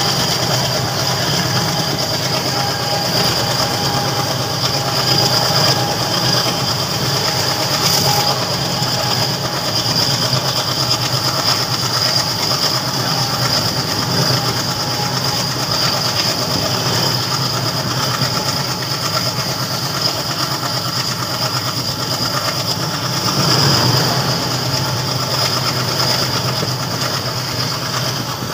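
Moving passenger train heard from inside a coach at an open window: a steady rumble with wheels clattering over the rail joints, briefly swelling louder a few seconds before the end.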